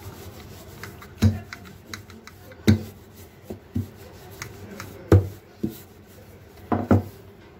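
Wooden rolling pin rolling out paratha dough on a stone countertop: a soft rubbing roll punctuated by dull knocks every second or two as the pin comes down on the counter, two close together near the end.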